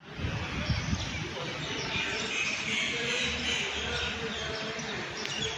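Many small birds chirping together, a steady twittering chorus, with low buffeting on the microphone during the first second.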